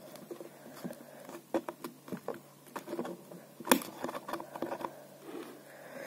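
Fingers and fingernails scratching, tapping and clicking at a grille glued into the rim of a PVC pipe as it is pried at by hand without coming loose: a run of small irregular clicks and scrapes, with one sharper click near the middle.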